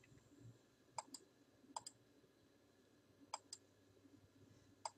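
Computer mouse clicking: four quick double clicks a second or more apart, faint against near silence.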